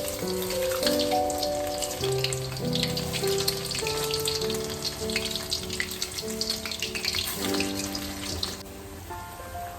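Gentle background music with long held notes, over a dense crackling hiss that stops abruptly near the end.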